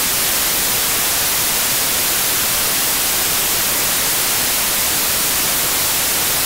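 Loud, steady analog static hiss, heaviest in the high end, unchanging throughout.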